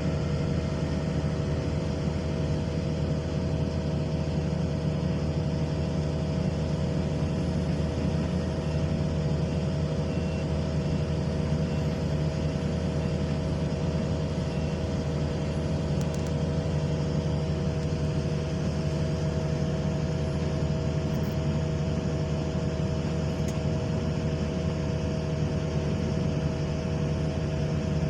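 Excavator's diesel engine running steadily at a constant speed, with a steady hum and no revving.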